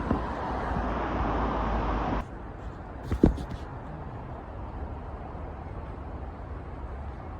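Outdoor city ambience with a steady traffic-like rumble that drops suddenly to a quieter hum about two seconds in, and one sharp knock about a second later.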